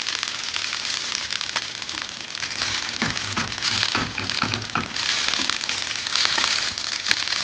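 Suji-and-vegetable pancake batter frying in oil in a skillet, sizzling with a steady crackle, along with spatula scrapes and taps as the pancake is loosened and flipped.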